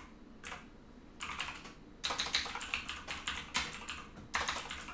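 Typing on a computer keyboard: short bursts of rapid key clicks with brief pauses between them.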